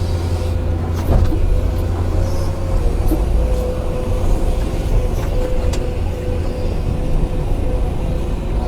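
Hydraulic excavator working: its diesel engine runs with a steady low drone, a high hydraulic whine rises and falls slightly over it, and a couple of sharp clanks come about one and three seconds in.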